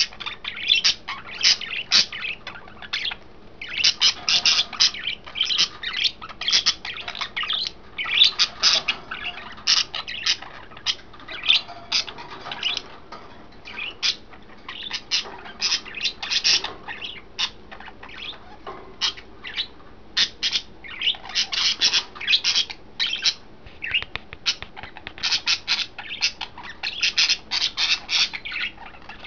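Pet budgerigars chattering and squawking, a rapid, continuous run of high chirps broken by short pauses.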